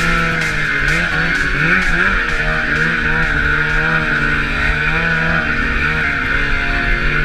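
2014 Polaris Pro RMK 800 snowmobile's two-stroke twin engine, fitted with an MBRP exhaust, revving up and falling back over and over, about once a second, as the sled is worked slowly through deep powder between trees.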